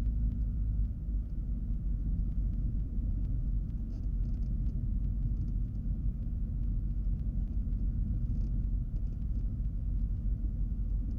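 Cessna 310Q's twin piston engines running with a steady low drone, heard from inside the cockpit, lined up on the runway for takeoff.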